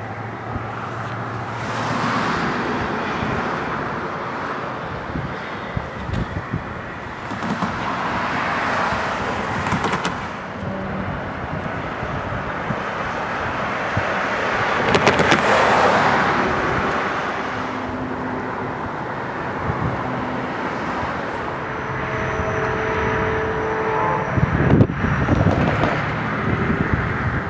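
Road traffic: several cars pass one after another, each swelling and fading away, the loudest about halfway through.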